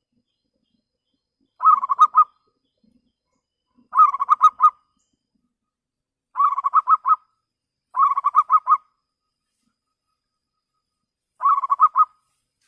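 Zebra dove (perkutut) cooing: five short phrases of quick, clear staccato notes, spaced a couple of seconds apart.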